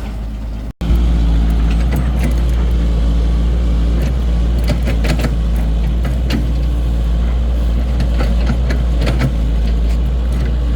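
Excavator engine running steadily, with scattered knocks and clatter over it. The sound drops out for an instant just under a second in, then returns louder.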